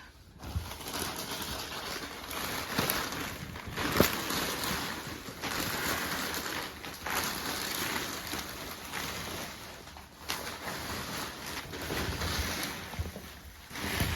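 Beyblade spinning tops whirring and scraping against each other in a plastic battle stadium, with a few sharp clacks.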